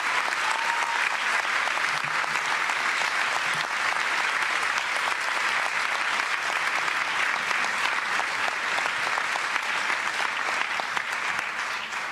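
Large audience applauding: many hands clapping steadily.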